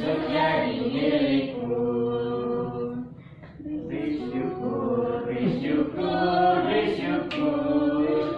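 A group of voices singing together without instruments, holding long sung notes, with a short break between phrases about three seconds in.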